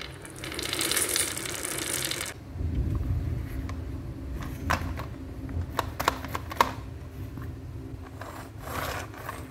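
A plastic toy dump truck being handled and rolled on a tabletop. A rustle in the first couple of seconds gives way to a low rumble of its plastic wheels rolling, then several sharp clicks and knocks of hard plastic around the middle, with another short rustle near the end.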